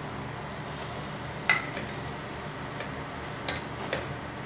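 Sweet and sour sauce with carrot strips sizzling and bubbling in an aluminium pot, the hiss rising under a second in. A metal ladle knocks sharply against the pot three times while stirring, loudest about a second and a half in.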